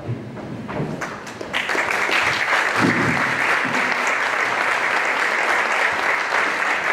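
Audience applauding in a hall, building up over the first second and a half and then holding steady.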